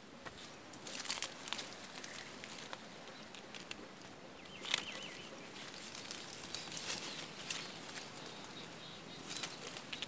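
Mango leaves and twigs rustling and crackling close to the microphone as the branches are brushed through, in irregular bursts with sharp clicks, the strongest about a second in and near the middle.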